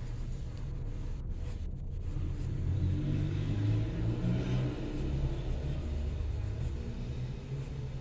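Low rumble that swells about three seconds in and eases off near the end.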